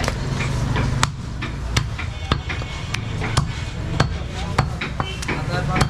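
Butcher's cleaver chopping goat meat on a block: a series of sharp, single chops, roughly one every half second to second.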